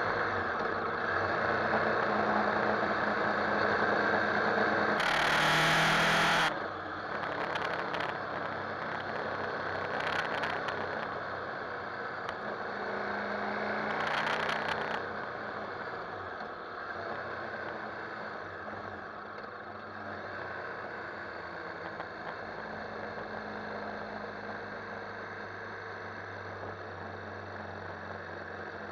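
KTM 1190 Adventure's V-twin engine running on the move, with steady wind and road noise. It is louder over the first six seconds, drops suddenly about six and a half seconds in, and swells briefly again around the middle before settling lower.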